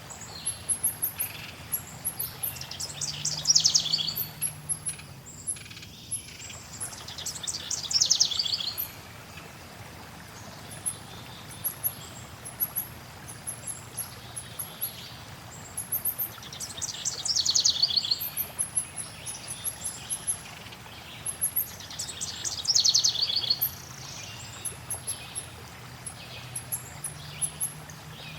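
Songbirds calling in chorus: many short, high chirps throughout, and four times a louder, rapid trilled song phrase lasting about a second and a half, over a faint steady background hiss.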